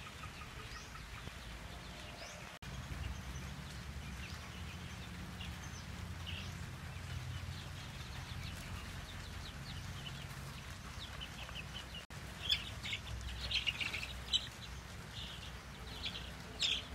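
Chickens in a coop, broilers and young Rhode Island Reds, giving short high chirps and clucks that grow louder and more frequent in the last few seconds, over a steady low rumble.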